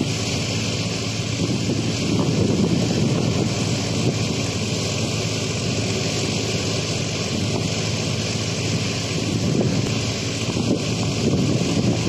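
A tractor engine running steadily, driving a wheat thresher, with a constant drone and hum. Wind buffets the microphone throughout.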